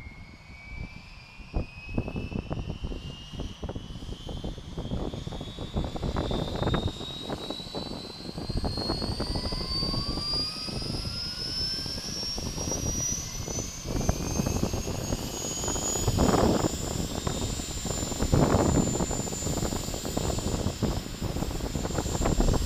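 Bell UH-1H Huey's Lycoming T53 turboshaft spooling up on the ground before take-off: a high turbine whine climbing steadily in pitch, over a low, uneven rumble from the turning main rotor, growing louder.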